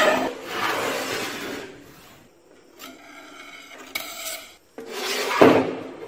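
Several short bursts of scraping and rubbing, like a hard object dragged or rasped across a hard surface, broken by brief gaps.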